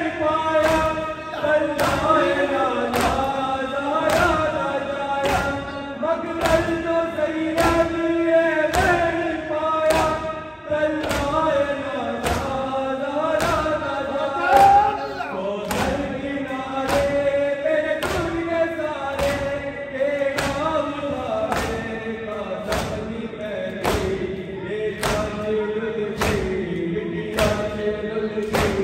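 Men's voices chanting a noha, a Shia lament, in unison over rhythmic matam chest-beating: a hand-on-chest thud about once a second.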